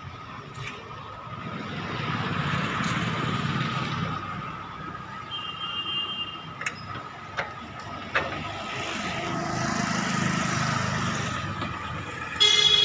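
Road traffic going by, with two vehicles passing one after another, then a vehicle horn honking loudly near the end.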